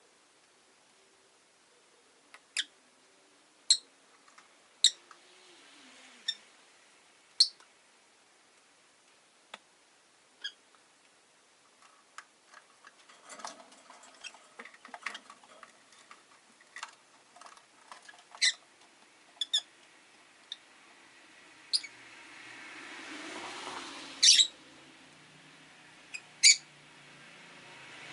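Rosy-faced lovebirds giving short, sharp chirps at irregular intervals, with quieter clicks among them. Just after two-thirds of the way in, a passing car swells and fades.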